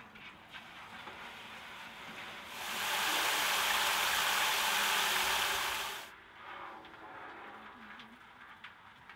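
Garden hose spray nozzle spraying water into a water-filled galvanized washtub: a steady hiss and splash that starts about two and a half seconds in and cuts off about three and a half seconds later.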